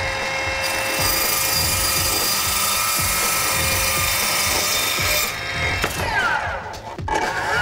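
Brushless chop saw running with a high, steady whine as its blade cuts a wooden board. About six seconds in the motor winds down, and near the end it starts again and speeds up.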